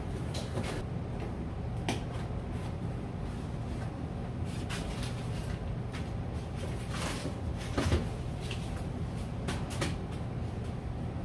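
A fishing reel's box being opened and handled: scattered knocks and rustles of the lid and packaging, with the loudest knock about eight seconds in, over a steady low hum.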